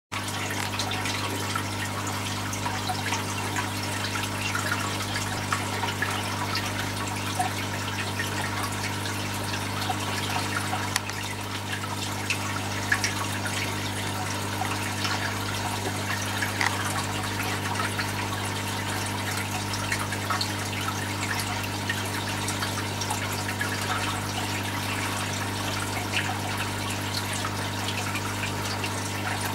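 Aquarium pump running: water trickling and bubbling steadily over a constant low hum.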